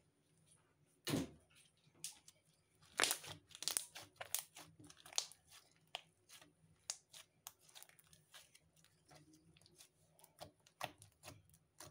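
Pink slime with small embedded bits squeezed and kneaded by hand, giving irregular sharp crackles and clicks. The loudest comes about a second in, with a dense run around three to four seconds in.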